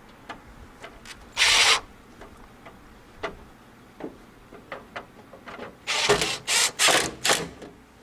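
Hand work on a headlight and grille assembly: a loud scrape about a second and a half in, scattered small clicks, then a run of four or five quick scrapes near the end as parts and screws are worked into place.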